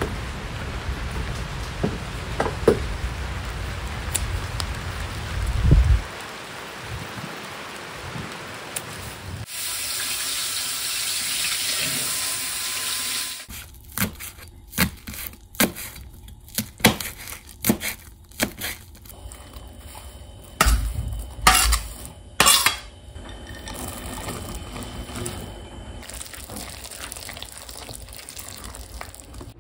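Rain falling on a garden, with a few footsteps on a wet wooden deck. Then a kitchen tap runs for about four seconds, a knife chops chives on a cutting board in a run of sharp taps, and a whisk stirs batter in a bowl with knocks and scraping.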